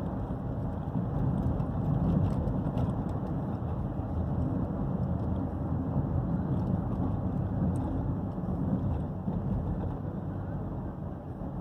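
Steady low rumble of a running Renault Clio heard from inside the cabin, engine and road noise with no music playing.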